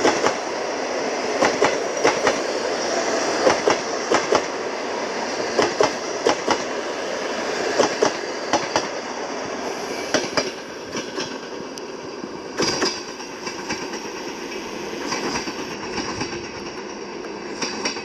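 Passenger coaches rolling past at station-approach speed, their wheels clicking over the rail joints in pairs with a steady rolling rumble. The clicks come further apart and the sound gets quieter after about ten seconds as the train slows.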